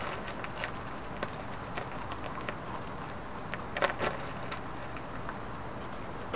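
Quiet control-room background noise with scattered faint clicks and knocks, and a short cluster of louder clicks about four seconds in.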